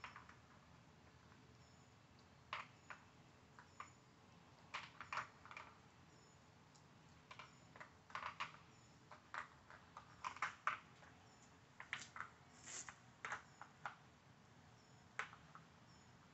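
Plastic dog puzzle toy (Outward Hound Dog Brick) clicking and clacking as a Sheepadoodle puppy noses and paws at its flip-over tabs and sliders to get at treats. Irregular light clicks, some in quick clusters, with short pauses between.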